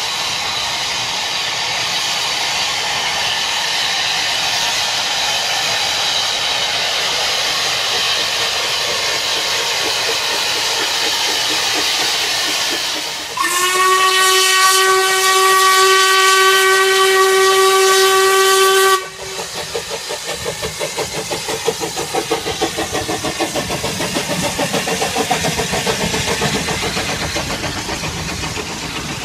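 Narrow-gauge Kerr Stuart 0-6-2T steam locomotive No. 12 Joan working with a steady hiss, then sounding one long whistle blast of about five seconds as it nears a level crossing. As the train passes close by, a fast, even clatter follows, about three beats a second.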